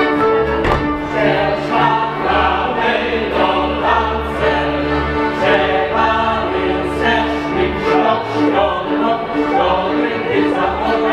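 Czech folk dance music: a small folk band with fiddle and bowed bass playing while a group of voices sings along.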